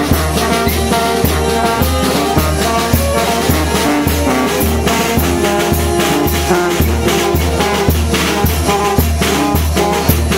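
Brass band (banda) playing: trumpet and saxophone melody over a steady pulsing bass line, with snare drum and bass drum keeping the beat.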